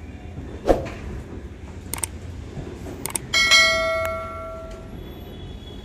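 Train wheels knocking over rail joints in a yard, a few sharp clacks over a low running rumble. About three and a half seconds in comes a single bell-like metallic ring that dies away over a second or so.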